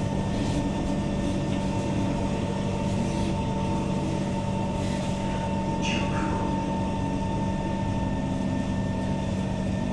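Cabin noise inside a Kawasaki Heavy Industries C151 metro train car as it runs: a steady rumble with a constant hum and whine, and a brief squeak about six seconds in.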